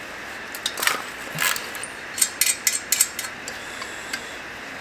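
Hand ratchet and metal tools working the bolts on a turbocharger: scattered sharp metal clicks and clinks, with a short run of quick clicks about two seconds in.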